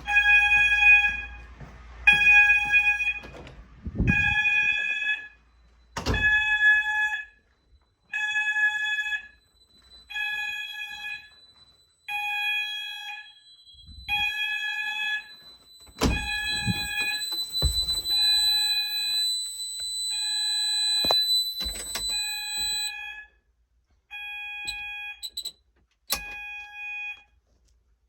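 Fire alarm sounders on an Apollo XP95/Discovery addressable system pulsing a single tone, about one second on and one off, during a test of the carbon monoxide alarm. A second, higher steady tone joins for several seconds midway, with a few thumps, and near the end the pulses shorten and stop.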